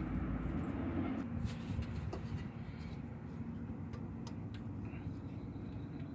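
Low steady rumble with a few light clicks and knocks, typical of hands working a serpentine belt onto its pulleys in a truck's engine bay.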